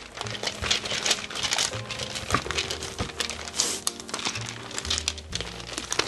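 Parchment paper crinkling and rustling in quick crackles as a rolling pin rolls cookie dough flat between two sheets, over soft background music.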